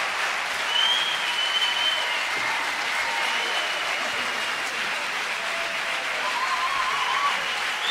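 Large theatre audience applauding steadily, with a few long, high-pitched whistles sounding over the clapping.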